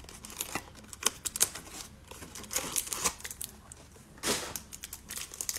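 Cardboard trading-card hanger box being opened by hand and its plastic tray and cellophane-wrapped card stack handled: scattered light clicks and ticks of card stock and plastic, with a louder rustle about four seconds in.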